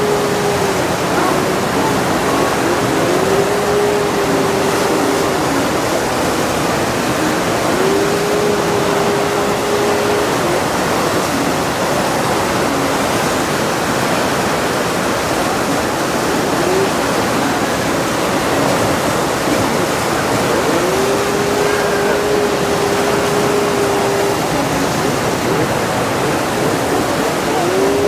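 Rushing white water churning down a man-made rapids channel, a loud, steady torrent. Over it, a droning tone comes and goes several times, each lasting two or three seconds.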